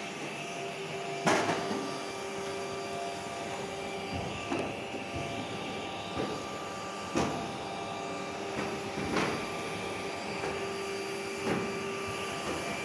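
Numatic Henry Micro vacuum cleaner running at its single speed while vacuuming, a steady whine with several short knocks spaced a few seconds apart.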